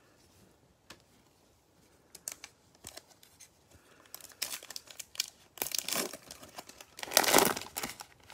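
A Panini Mosaic football card pack's foil wrapper crinkling as it is handled and then torn open, the tear loudest near the end after a quieter start.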